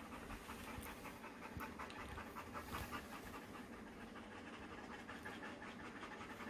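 Dogs panting in a quick, steady rhythm.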